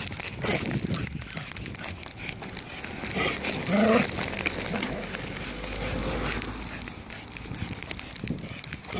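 An excited black-and-white dog tussling on its lead during a walk: steady scuffing and rustling, with short voice-like sounds about three and four seconds in.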